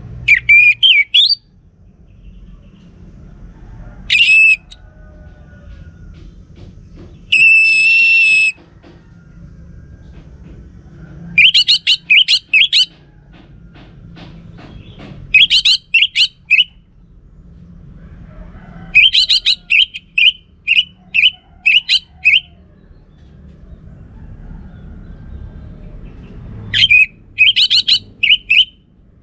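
Orange-headed thrush (anis merah) singing in separate loud phrases a few seconds apart. The phrases are quick runs of clear whistled notes, one long held whistle, and fast series of repeated notes, with a low steady rumble underneath.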